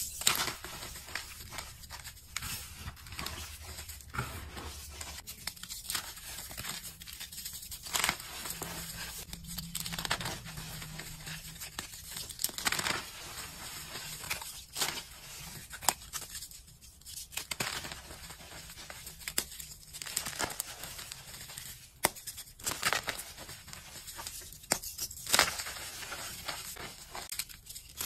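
Blocks of reformed gym chalk crunching and crumbling in the hands, an irregular run of crisp crackles with a few louder snaps, over the soft rustle of loose chalk powder.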